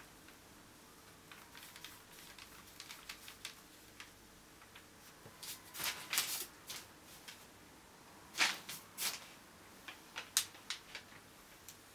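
Irregular light clicks and taps of painting tools being handled, such as a brush and a small plastic paint cup, with louder clusters about six seconds in and again about eight and a half seconds in.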